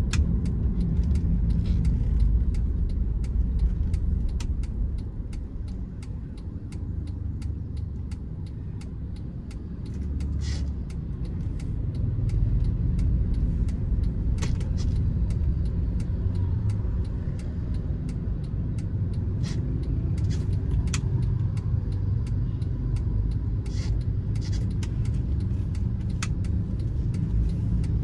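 Cabin noise of a 2012 Honda Freed minivan on the move: a steady low rumble from its 1.5-litre L15A four-cylinder engine and the road, heard from inside the car. It drops quieter for a few seconds about five seconds in, then picks up again, with a few faint clicks scattered through.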